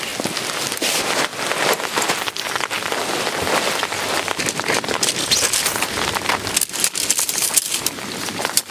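Heavy storm rain pattering steadily, a dense hiss of drops with many sharper individual hits.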